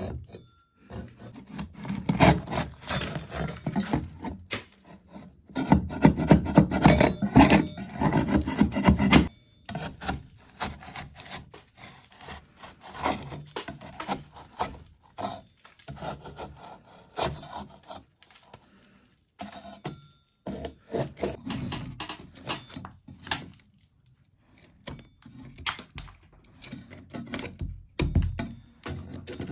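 Metal okonomiyaki spatula scraping an old sand-textured wall (sunakabe) off, in irregular rasping strokes. The scraping comes in two long dense runs in the first ten seconds, then in shorter separate strokes with short pauses.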